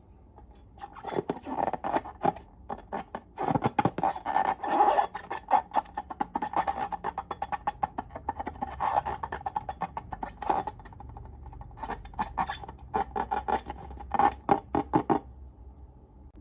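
Slime being squeezed and poked by hand, giving dense runs of sharp clicks and crackles as air pockets pop, with a short pause in the middle.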